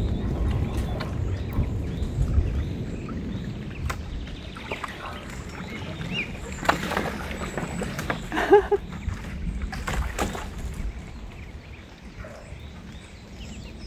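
Ducks splashing and sloshing water in a small plastic pool, with a few short duck calls around the middle.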